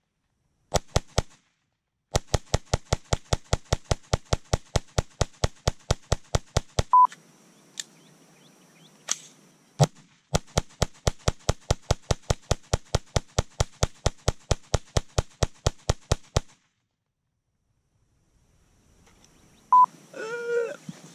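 Camera shutter firing in rapid bursts, about seven clicks a second, in two long runs of several seconds each. A short high beep sounds between the runs.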